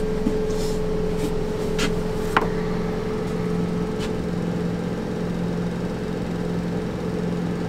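A steady machine hum, with a few light clicks of a metal flip socket being handled and turned over in the hands; the sharpest click comes about two and a half seconds in.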